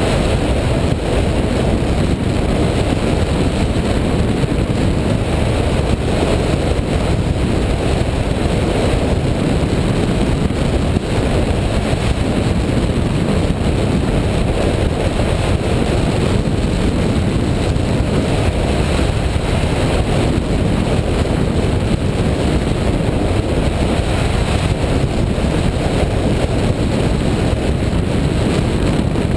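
Steady, loud wind noise from the airflow rushing over the microphone of a camera mounted on a hang glider in flight.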